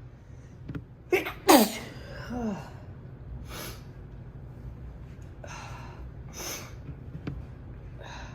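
A person sneezes once, loudly, about a second and a half in, after a sharp intake of breath, the sneeze trailing off in a falling voiced cry; several short noisy breaths follow. The sneeze is set off by the scent of a cinnamon candle.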